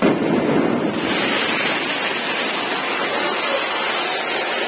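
Ground fountain firework (anar, flower pot) spraying sparks with a loud, steady hiss that starts abruptly.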